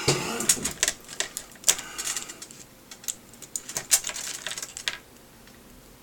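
Irregular small clicks and ticks of plastic and metal electronics parts being handled and worked apart, thinning out near the end.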